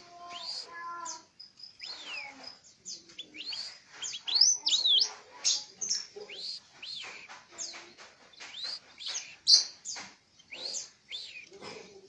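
Caged sanger songbird singing a long, fast run of chirps and sharp down-slurred whistles. Its song is filled with black-throated canary (blackthroat) phrases.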